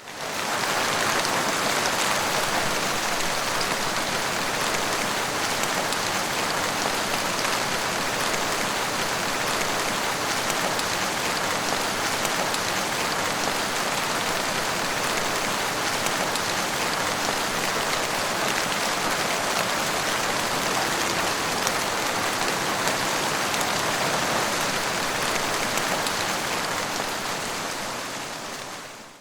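Heavy rain falling steadily as a dense, even hiss with no thunder. It fades in at the start and fades out near the end.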